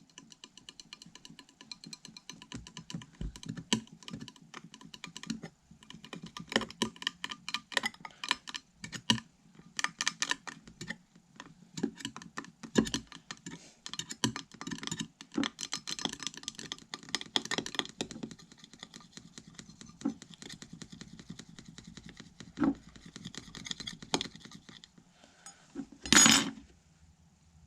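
A hard tool scratching rapidly back and forth across a phone's screen in dense, quick strokes, with a single louder knock near the end.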